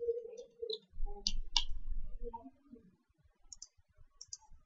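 Computer mouse clicks: several short, sharp clicks, a pair near the middle and quick little clusters near the end, with faint low murmuring early on.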